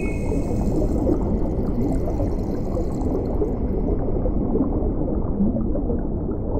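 Water in a koi pond splashing and gurgling in a dense, steady churn, with koi crowding and gulping at the surface.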